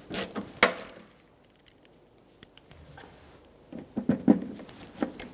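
A few sharp knocks and clicks of hand tools being handled against the door: a couple near the start, a quiet stretch, then a short cluster about four seconds in.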